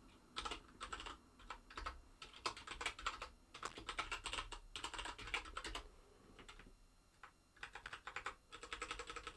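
Typing on a computer keyboard: quick runs of keystrokes with short pauses, thinning out for a second or so past the middle before picking up again near the end.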